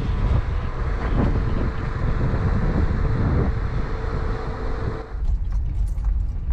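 Wind buffeting the microphone with a steady hum under it. About five seconds in it cuts to the low rumble of the Mazda Bongo van's cabin with the engine running.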